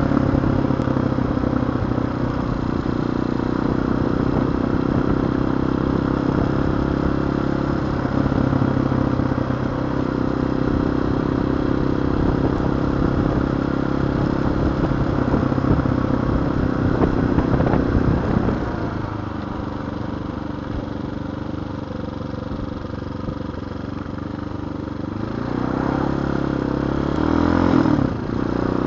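TaoTao TBR7 motorcycle engine running under way, heard from the rider's seat with wind noise. The engine note drops and quietens about two-thirds of the way through, then rises again with revving near the end.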